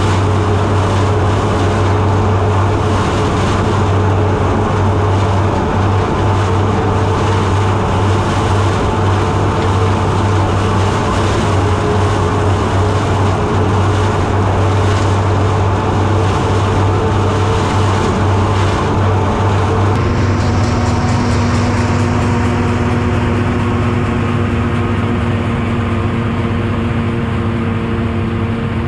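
Massey Ferguson 31 combine harvester running while harvesting oats: the engine and threshing machinery make a loud, steady hum with a continuous rushing clatter. About twenty seconds in, the sound changes and the combine is heard from farther off, a steadier drone with less of the high rush.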